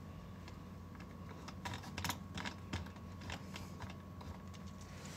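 Sparse, irregular clicks of computer keys, with a small cluster about two seconds in, over a faint steady electrical hum.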